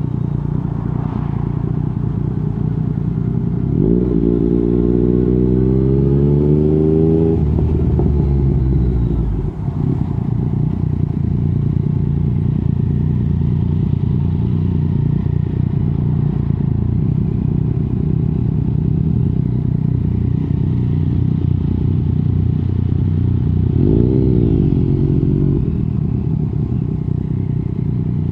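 Yamaha MT-09 SP's inline-three engine running through an Akrapovic racing exhaust with the dB killer removed, under way. It climbs in pitch under acceleration from about four seconds in for around three seconds, then backs off to a steady cruise, with a second brief rise near the end.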